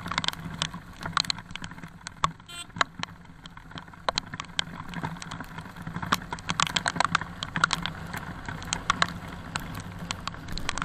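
Raindrops striking an action camera on a moving motorcycle, an irregular patter of sharp ticks over the motorcycle's steady low hum.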